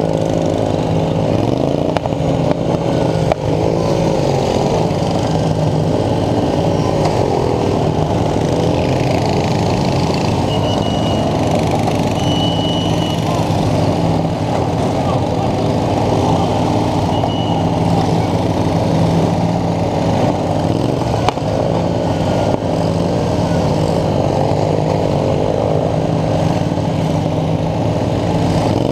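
Riding lawn mower engines running close up, their pitch wavering as they rev up and down.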